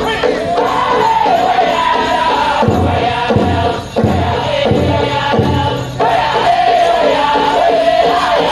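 Powwow drum group singing a prairie chicken dance song in high voices over a steady, fast drumbeat. Some 3 seconds in come about five louder, deeper drum strokes, roughly two-thirds of a second apart.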